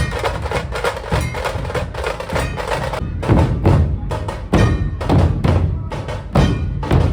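Maharashtrian dhol-tasha ensemble playing: fast, dense tasha strokes, joined from about three seconds in by heavy, booming dhol beats with short breaks between phrases.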